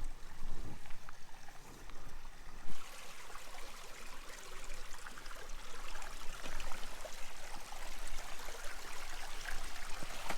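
Shallow, rock-filled creek running and trickling over stones in a steady rush. A single short knock comes a little under three seconds in, after which the water sounds fuller and brighter.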